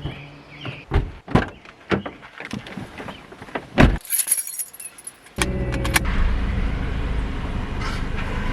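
Keys jangling with a series of clicks and knocks, the loudest near four seconds, as a car is got into. A car engine then starts running steadily about five seconds in.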